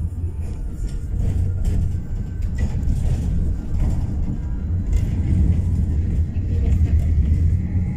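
Tram running along the street, heard from inside: a steady low rumble of wheels on the rails with a few faint clicks.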